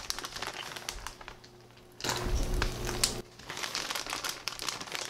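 Plastic bag of shredded mozzarella crinkling as it is handled, with many small crackles. It goes quiet about a second in and starts again about two seconds in.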